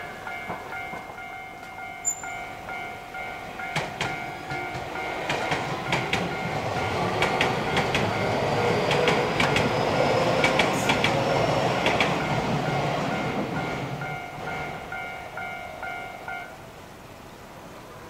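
Japanese level-crossing warning bell ringing in a rapid repeated electronic ding while an electric commuter train rumbles past, its wheels clacking over the rail joints. The train noise swells to a peak midway and fades. The bell stops shortly before the end as the crossing clears.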